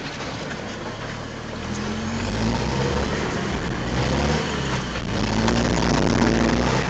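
Mitsubishi L200 pickup's engine and exhaust heard from inside the cab while driving a rough track, over steady tyre and road noise. The engine note strengthens and climbs about two seconds in, eases briefly, then climbs again around five seconds.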